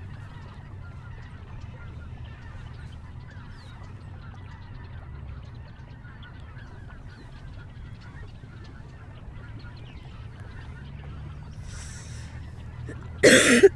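Many faint bird calls, honking like distant waterfowl, over a steady low rumble. Near the end there is a sudden, short, loud gasp, the breath of someone being revived.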